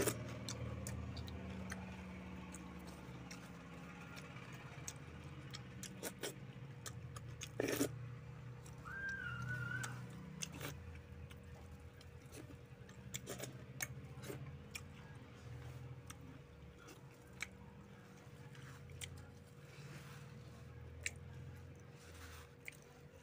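Close-up eating sounds: chewing and wet mouth clicks from a man eating rice and fish curry by hand, with scattered sharp clicks throughout and fingers squishing through curry in a steel bowl.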